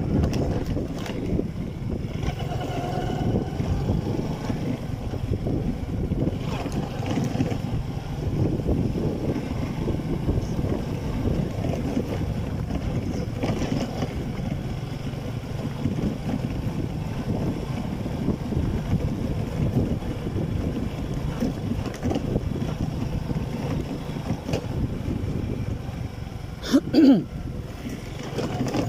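Motorcycle riding along a road, its engine running steadily under wind buffeting the microphone. There is a brief, louder sound near the end.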